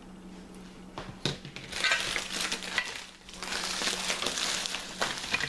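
Packing wrap on a parcel of gun parts being torn open and crinkled by hand: a couple of knocks about a second in, then two stretches of crackling.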